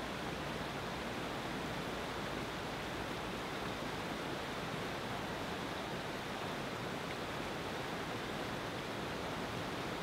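Fast white-water rapids rushing steadily, an even, unbroken wash of water with no changes in level.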